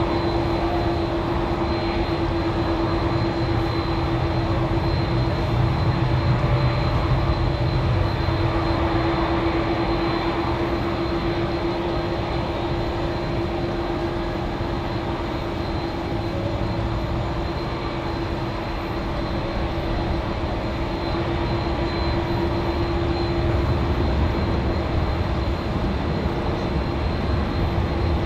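Jet aircraft engines running steadily: a constant low rumble with a steady tone held over it and a faint high whine.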